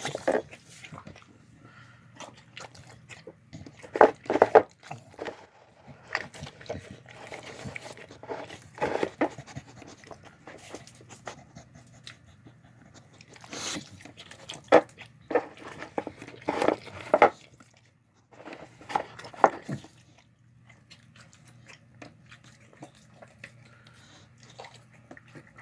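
A dog eating: irregular bursts of chewing and crunching, a few seconds apart, with quieter gaps between.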